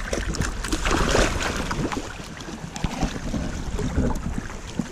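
Muddy water sloshing and splashing unevenly as someone wades through it, busiest in the first second or so.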